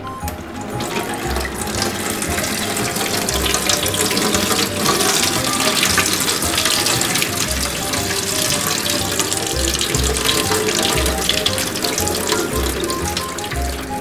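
Tap water running and splashing over a washing machine's plastic water inlet valve held in the stream, building up over the first second or so, with background music with a steady beat.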